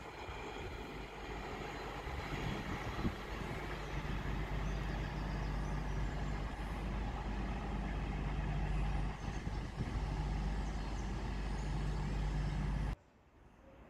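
Steady low drone of a Virgin Trains Voyager diesel multiple unit's underfloor engines idling at the platform. It cuts off suddenly about a second before the end, leaving only faint background.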